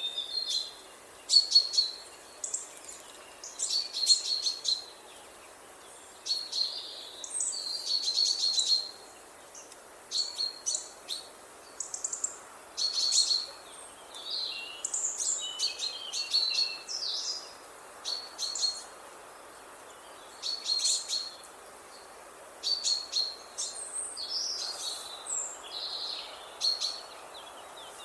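Chaffinch chirping and singing: short bursts of high twittering notes every second or two, over a faint steady background hiss.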